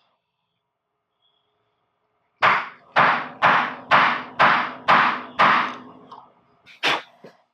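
Seven heavy knocks in an even run, about two a second, each ringing out briefly, then one sharper, higher hit about a second and a half later.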